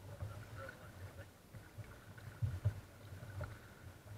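Water slapping and knocking against the hull of a sit-on-top kayak as it moves through small waves, heard as irregular low thuds. The two loudest come about two and a half seconds in.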